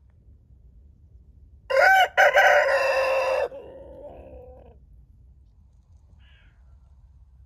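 A rooster crowing once: one loud call of about two seconds with a short break early in it, trailing off more faintly.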